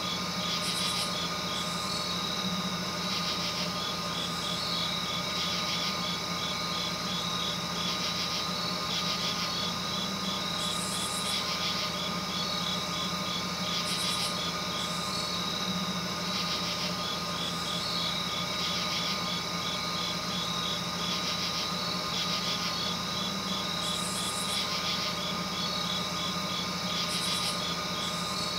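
Night insects chirping in rapid pulsed trains, with now and then a short higher buzz, over a constant low hum.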